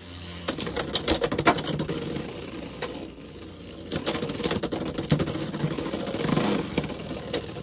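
Two Beyblade X spinning tops whirring across a clear plastic stadium floor, with many quick clicks and clacks as they knock against each other and the stadium.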